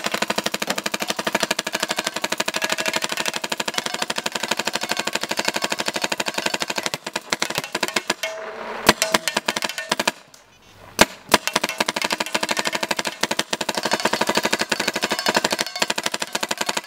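Planet Eclipse Geo 3 paintball marker firing in long rapid strings of shots. About ten seconds in the firing stops briefly, two single shots sound, then rapid fire resumes.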